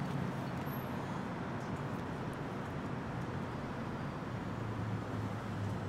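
Steady street traffic noise with a low engine hum under it.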